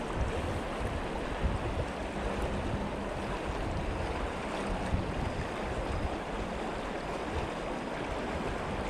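Steady rush of a river's current running over a stony bed close by.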